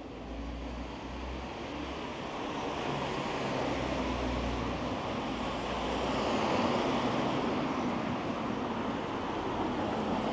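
Street traffic: a motor vehicle passes close by, its engine rumble and tyre noise swelling to a peak about two-thirds of the way through, then easing off.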